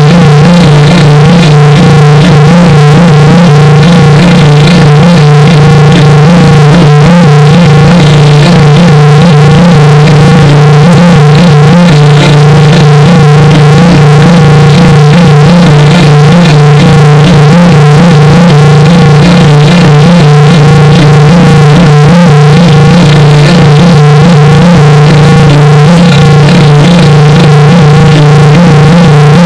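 Loud, heavily clipped synthesizer-like sound: a steady low hum with a warbling, buzzy tone above it, unchanging throughout. It is a 'G major' video-editor effect, layered pitch-shifted and filtered copies of an audio clip.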